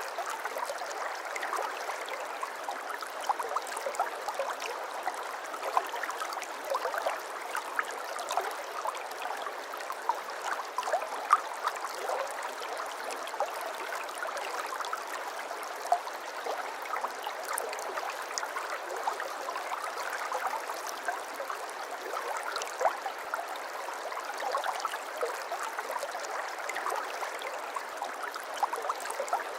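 Shallow water flowing and trickling steadily, with many small splashes and gurgles and no low rumble.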